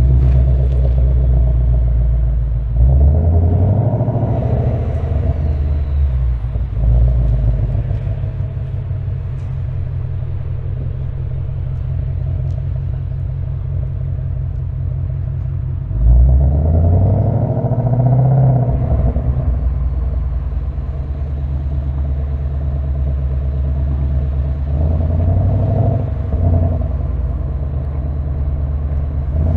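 2025 Ford Mustang GT's 5.0-litre V8 and exhaust rumbling along at steady cruise. Three times, about 3, 16 and 25 seconds in, it gets louder on acceleration: the engine note climbs in pitch and steps back as the automatic gearbox shifts up.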